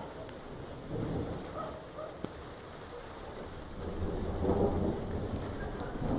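Thunder rumbling over rain, swelling about a second in and again, louder, from about four seconds, with a single sharp click a little after two seconds.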